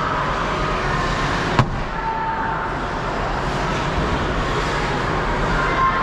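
Ice hockey rink ambience: a steady wash of arena noise, with one sharp crack about a second and a half in.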